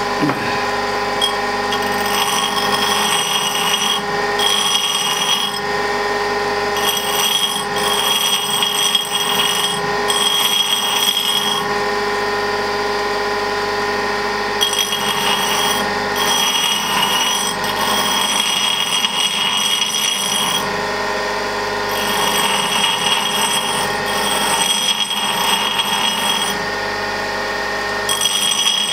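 Pedestal bench grinder running at speed with a steady whine while a large twist drill bit is sharpened on its abrasive wheel. A harsh, high grinding hiss comes and goes every second or two as the bit's tip is pressed to the wheel and lifted off again.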